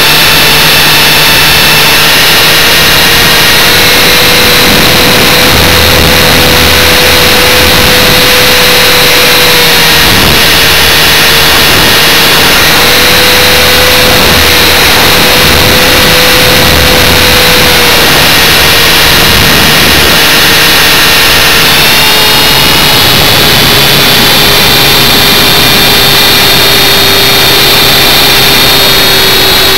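A motor running steadily close to the microphone over a heavy rushing noise, its whine easing up and down in pitch, dropping about a third of the way in and again past two-thirds, then holding lower.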